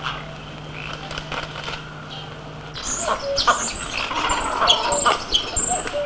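Birds calling and chirping, a few calls at first over a steady low hum, then from about three seconds in a louder, denser chorus of high chirps and whistles.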